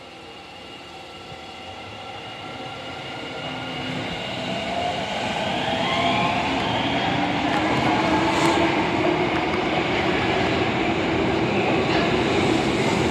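Osaka Metro Tanimachi Line 22-series subway train pulling away. Its traction motors whine, rising in pitch as it speeds up, and the running noise grows steadily louder over the first six seconds, then holds.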